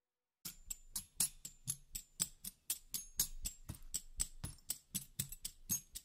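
Background music: after a moment of silence, a percussive track starts about half a second in, with sharp clicks or taps about four a second.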